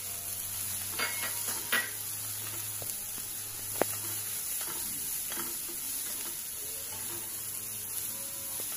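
Grated carrot, sprouted moong and peas sautéing in a nonstick pan with a soft, steady sizzle, while a spatula stirs and scrapes through them. One sharp tick, a little under four seconds in, stands out as the loudest sound.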